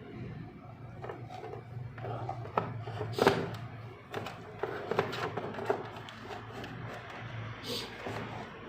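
Scattered clicks and knocks of small hard parts being handled, the loudest about three seconds in, over a low steady hum.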